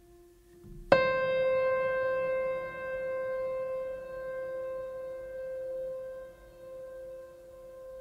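Meditation music: a single bell-like note struck about a second in, ringing on and slowly fading with a wavering decay, over a lower tone still sounding from before.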